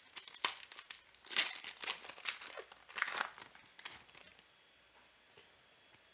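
Foil wrapper of a football trading card pack being torn open and crinkled in the hands, a rapid run of crackles that stops about four seconds in.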